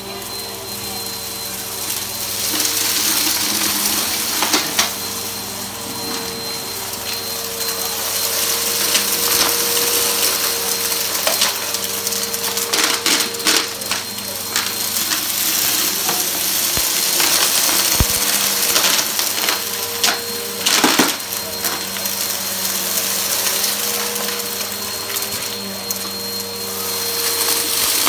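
Bissell upright vacuum cleaner running with a steady motor whine and hiss, its brush roll, on a freshly replaced belt, pulling up lint and grit from a heavily soiled carpet. Scattered crackles and ticks come as debris is sucked in.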